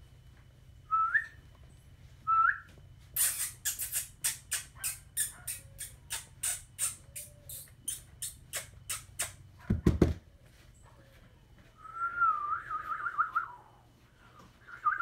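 Shih Tzu puppy whining: two short rising whimpers in the first few seconds, and a longer wavering whine near the end. In between comes a run of quick clicks, about three a second for several seconds, then a single thump.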